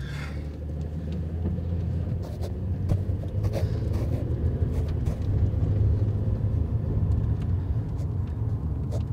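Steady low rumble of a car's engine and road noise heard from inside the cabin, growing a little louder over the first couple of seconds, with a few faint ticks.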